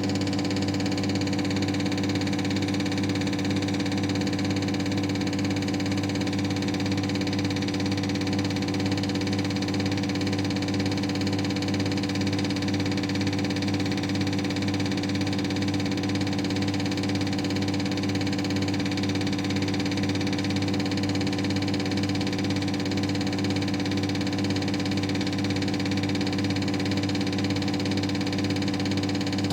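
CR618 injector test bench running steadily while it tests a Caterpillar 3126B HEUI injector: a steady machine hum with a regular pulsing.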